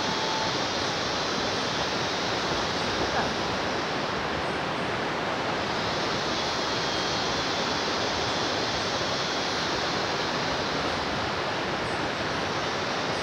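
River rapids rushing steadily: a continuous, even noise of white water.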